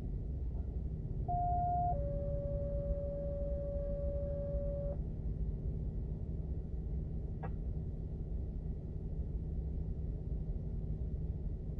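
Two-tone sequential paging tones over a scanner radio: a higher tone for about half a second, then a lower tone held about three seconds. This is the alert a dispatcher sends to call out a fire or EMS unit. A steady low rumble of the car runs underneath, and a single click comes about halfway through.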